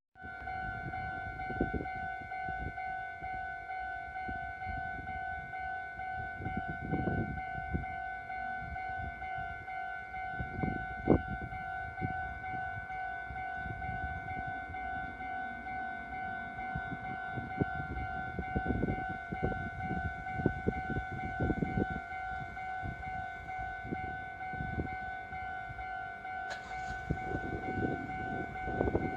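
Japanese railway level-crossing alarm ringing steadily with its electronic 'kan-kan' warning, over low, uneven rumbling that grows near the end. A single sharp knock comes about eleven seconds in.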